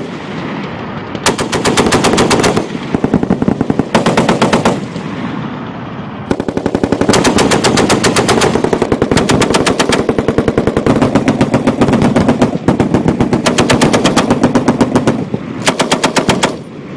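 Belt-fed machine guns firing in repeated bursts of one to three seconds, a nearby gun loudest, with other guns on the line still firing more faintly in between.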